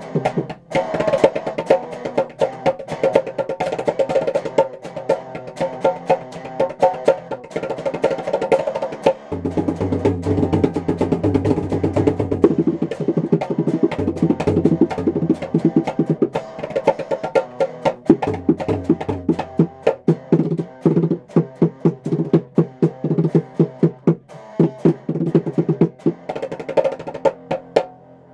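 Amplified Stratocaster-style electric guitar jam, with a fast drum-like percussive beat of sharp hits. Deep low notes join about a third of the way in.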